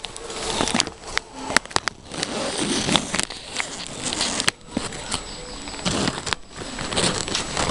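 Handling noise on the camera's microphone: irregular rustling and scuffing, broken by many sharp clicks and knocks at uneven intervals.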